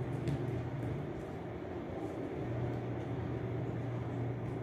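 Steady low machine hum over a faint even hiss, with a faint light click a moment in.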